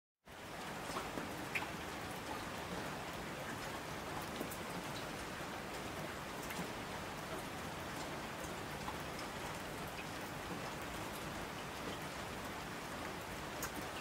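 Steady rain, an even hiss with scattered individual drops ticking on top.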